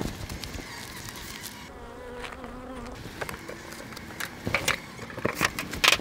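Honey bees buzzing in flight around the open hives, a steady hum that wavers in pitch, with a few light knocks near the end.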